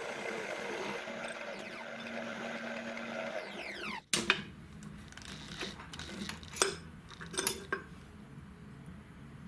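Electric drill running steadily as a twist bit bores through steel plate, then winding down with falling pitch just before the sound cuts off at about four seconds. After that come a few sharp metallic clicks and taps as the drilled steel plates are handled and marked.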